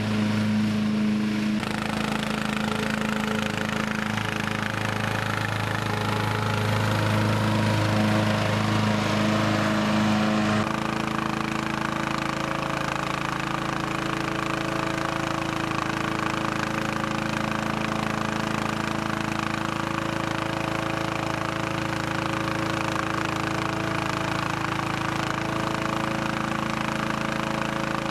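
Partner P145107H lawn tractor running steadily while mowing, its engine drone carrying a strong low hum. About ten seconds in the engine note changes abruptly to a different steady pitch.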